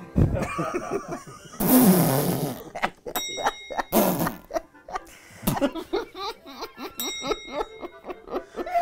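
People laughing out loud in bursts right after a joke's punchline, with a short bell-like ding twice.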